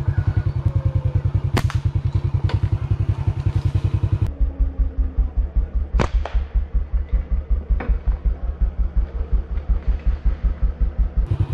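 Small motorcycle engine running with a steady, rapid low pulsing beat. About four seconds in its note drops and the beat slows slightly. A few sharp clicks or knocks sound over it.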